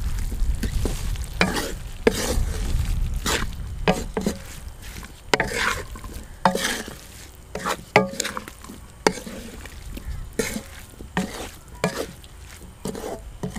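Wooden spatula stirring chicken mince with tomatoes, green chillies and spices in an aluminium karahi, scraping along the metal about once a second, over the sizzle of the mince frying.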